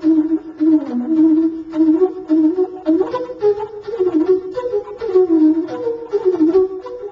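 Bansuri (bamboo flute) playing a Hindustani classical melody in raga Shyam Kalyan, with notes gliding into one another and short repeated note attacks.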